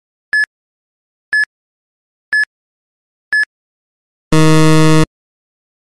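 Quiz countdown timer sound effect: four short high beeps, one a second, then a longer, lower buzzer tone of under a second that marks time running out.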